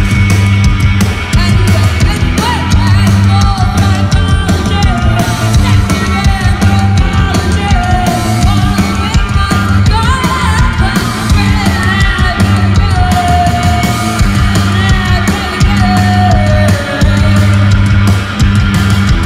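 A punk rock band playing live, heard from the crowd: driving bass, electric guitars and drums, with a woman's lead vocal singing a bending, half-shouted melody from about two seconds in.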